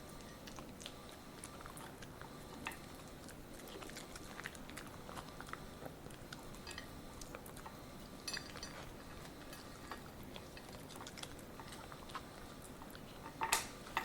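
Poodle chewing and crunching broccoli: a run of small irregular crunches and clicks. A louder, brief smack comes near the end.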